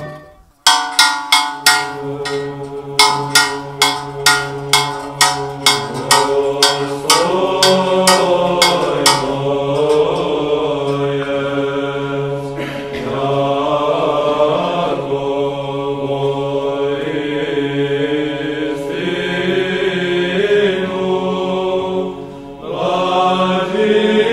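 A bell struck in a quick run, about two or three strikes a second, each ringing on, for roughly the first nine seconds. Underneath and after it, Orthodox-style church chant: voices singing over a low held drone note, with a short break near the end.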